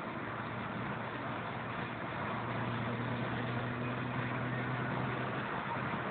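Car driving at motorway speed, heard from inside the cabin: steady road and wind noise with a low engine drone that grows a little louder from about two seconds in.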